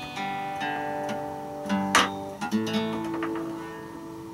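Acoustic guitar being played: chords strummed and left to ring, with a sharp, loud strum about halfway through and a few lighter strums after it.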